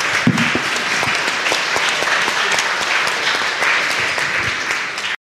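Audience applauding, many hands clapping at once in a dense, even patter; it cuts off abruptly near the end.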